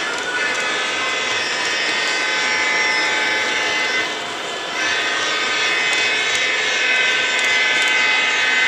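Lionel O-gauge model train running on three-rail track: a steady mix of electric motor whine and metal wheels rolling on the rails, dipping briefly about four seconds in.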